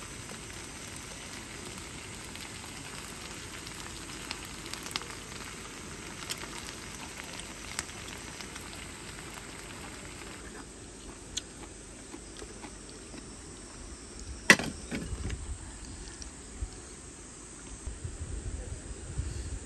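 Thick red sauce with octopus pieces sizzling and bubbling in a small pot on a canister gas stove, with scattered light crackling ticks; the sizzle fades about halfway through. A single sharp knock about three quarters of the way in is the loudest sound, followed by a few soft low thumps near the end.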